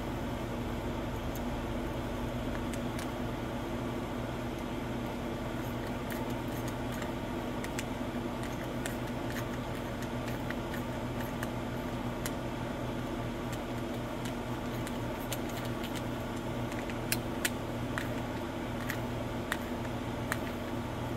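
Scattered light metal clicks and clinks of a socket ratchet being handled, over a steady mechanical hum.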